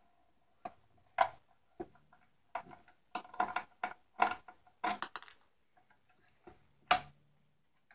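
Irregular clicks and taps of a small screwdriver and fingers on the plastic and metal parts of a Pelco dome security camera being taken apart, with two sharper clicks about a second in and near the end.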